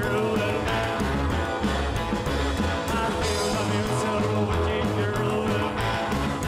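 Background rock and roll music, a song with guitar and a singing voice over a steady beat.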